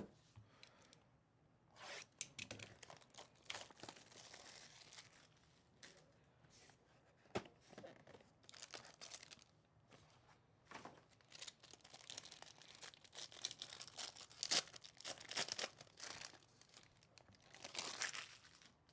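Sealed packaging of a Topps Tier One baseball card box being torn open: plastic wrap and wrapper tearing and crinkling in short, irregular rustling bursts, busiest in the second half.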